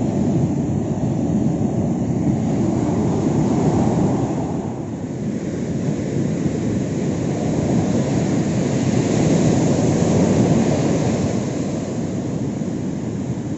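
Ocean surf breaking on a sandy beach: a steady low rush that swells and eases slowly, with a dip about five seconds in.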